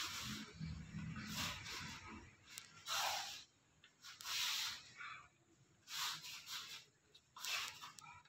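A young taekwondo student performing the Taegeuk Il Jang poomsae: a short hissing burst of breath and uniform swish with each technique, about every one and a half seconds, with near quiet between.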